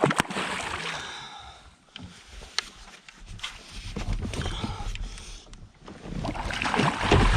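Knocks and rustling from a small boat while a striped bass is netted at its side. Sharp knocks at the start and about two and a half seconds in; the noise grows louder near the end.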